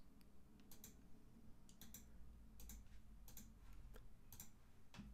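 Near silence with faint computer mouse clicks, short and irregular, often in close pairs, about every half second.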